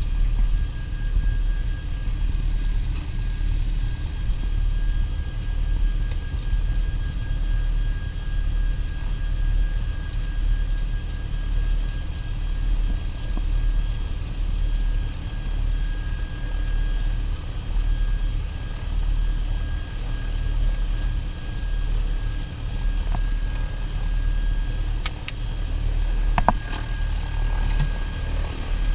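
Piper PA-44 Seminole's twin piston engines running at low taxi power, a steady low drone heard from inside the cockpit. A few brief clicks near the end.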